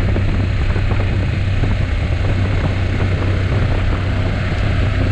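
Honda NC750X parallel-twin motorcycle engine running at a steady cruise, its low hum mixed with heavy wind and road noise on the camera while riding.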